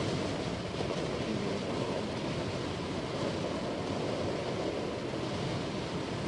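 Steady wind rushing over the microphone, mixed with the road noise of a moving car.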